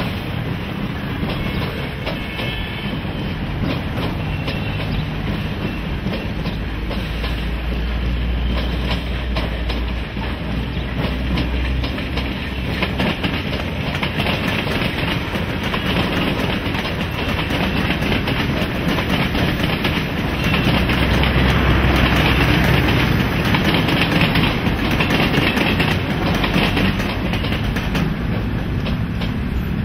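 Mumbai suburban electric local trains running past on the tracks: a steady rumble of wheels on rail with clickety-clack over the rail joints, growing loudest about two-thirds of the way through.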